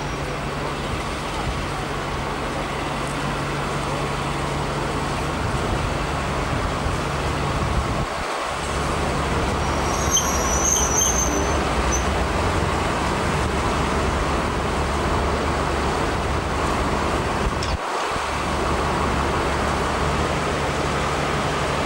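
Class 52 'Western' diesel-hydraulic's twin Maybach engines running at idle with a steady low hum as the locomotive draws slowly up and then stands. The sound drops out briefly twice, about eight and eighteen seconds in, and a short high-pitched sound comes about ten seconds in.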